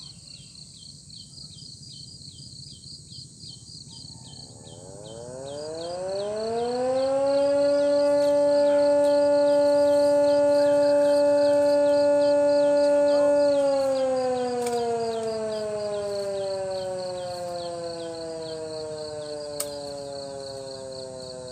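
A siren winding up about five seconds in, holding one steady wailing tone for about six seconds, then slowly winding down in pitch and fading. Insects chirp in a fast, even rhythm underneath.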